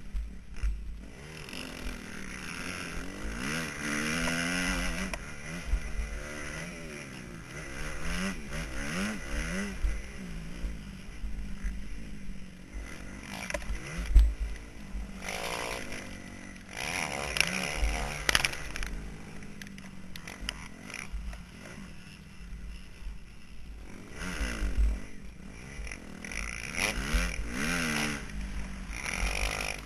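Motocross bike engine revving hard, its pitch climbing and dropping again and again as the rider opens and shuts the throttle, with wind buffeting the microphone and knocks from the rough track. A single sharp knock stands out about fourteen seconds in.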